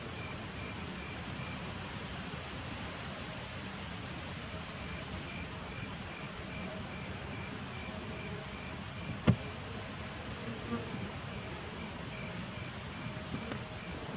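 Steady buzzing of a crowd of honeybees at the entrance of a nuc hive. A faint high chirping repeats about three times a second behind it, and a single sharp click sounds about nine seconds in.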